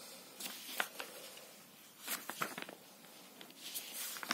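Soft paper rustles and a few light taps as the pages of a paperback textbook are handled and turned.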